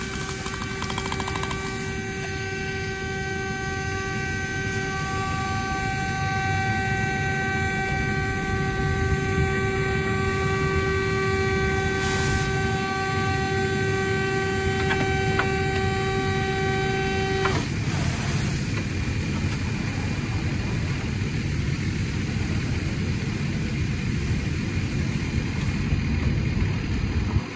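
The burning Chevy Sonic's horn stuck on and sounding one steady unbroken tone, then cutting off suddenly about seventeen seconds in. A steady rushing noise continues underneath.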